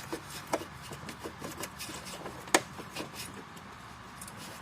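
Hand tool working a bolt loose under the front of a car: scattered small metallic clicks and rattles at an uneven pace, with one sharper click about two and a half seconds in.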